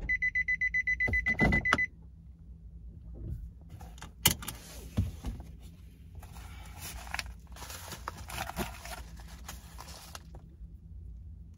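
A car's warning chime beeps rapidly and evenly for about two seconds, then stops. A sharp click follows a couple of seconds later, then several seconds of paper rustling as a padded mailing envelope is handled.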